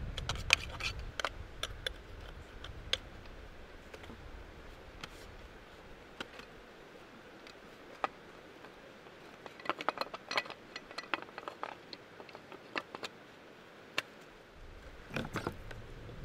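Light clicks, taps and scrapes of small parts and tools being handled on a Stihl chainsaw during hand servicing, coming in a few short clusters. A low rumble fades out over the first few seconds.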